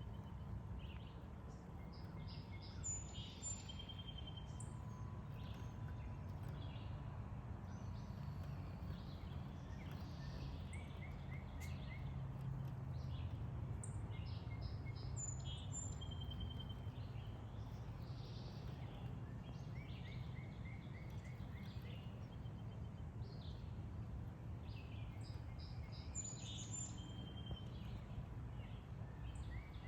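Songbirds singing, one bird repeating the same phrase about every twelve seconds, over a steady low rumble.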